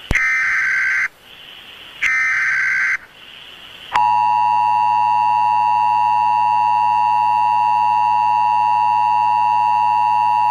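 Emergency Alert System SAME header: two harsh, buzzy data bursts about a second long each, a second apart. About four seconds in, the steady two-tone EAS attention signal starts and holds.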